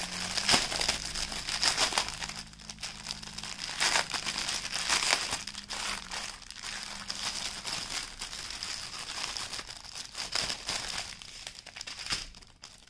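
Plastic packaging of diamond-painting drills crinkling and rustling as it is opened and handled, in irregular crackles that thin out toward the end.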